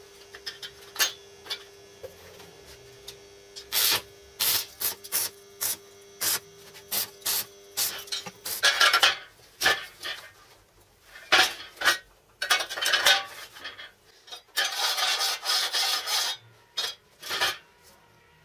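Hand tools worked over a welded steel frame: a run of sharp metal taps and knocks, then, from about halfway, several stretches of rasping, scrubbing strokes on the steel.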